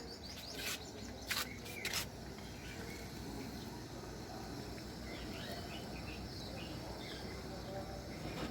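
Pastry deep-frying in a small pan of hot oil, a steady sizzle, with three sharp clicks in the first two seconds as a utensil knocks the pan while the pie is flipped. Faint bird chirps sound in the background.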